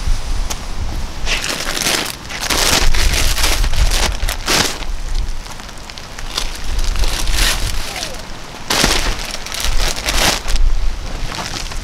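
Wind buffeting the microphone in a low rumble, with plastic compost bags crinkling and scraping on wet paving slabs in several bursts as they are grabbed, dragged and lifted.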